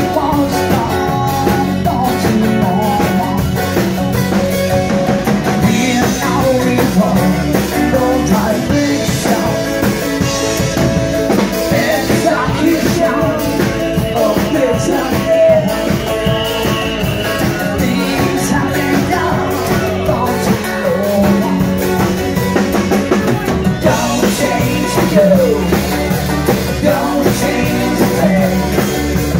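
Live rock band playing: strummed acoustic guitars and a drum kit, with singing.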